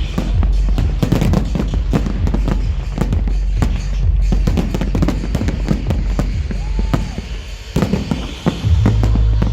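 Fireworks bursting in a rapid series of sharp bangs over loud dance music with heavy bass. A deep, steady bass note comes in near the end.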